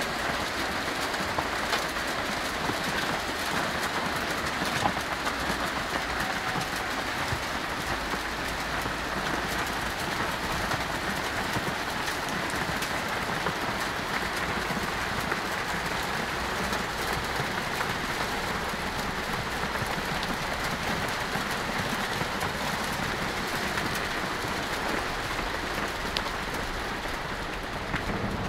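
Hailstones falling and striking surfaces: a dense, steady clatter of countless small impacts.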